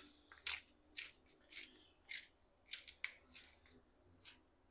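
Black pepper being ground over plated spaghetti: a run of short, dry rasping strokes, about two a second.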